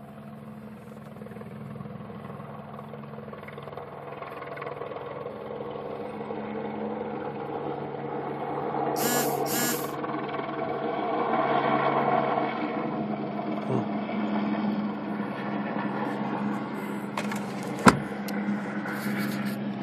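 Helicopter passing overhead, heard from inside a car over a steady low hum; it grows louder toward the middle and eases off. Two short high bursts come about halfway, and a sharp knock near the end.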